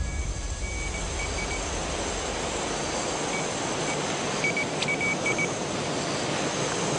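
A Mel-Meter EMF detector beeping in short, high, irregular runs of beeps, signalling the field readings the investigators take for anomalous energy. Under it runs a steady loud rushing noise.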